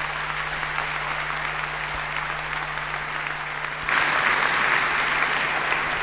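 Audience applause in a large hall, steady and growing louder about four seconds in.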